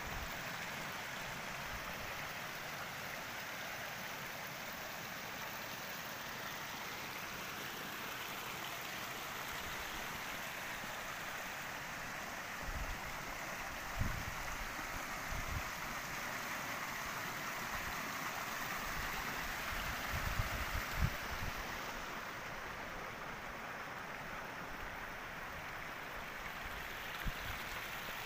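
Steady rush of water flowing through concrete trout-farm raceways, with a few soft low thumps near the middle.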